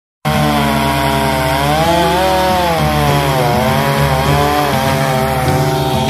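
Chainsaw cutting into a tree, its engine note wavering up and down as it runs under load.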